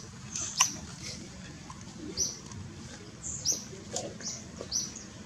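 About eight short, high-pitched animal chirps, each dropping quickly in pitch, come at irregular intervals over a low, steady outdoor background.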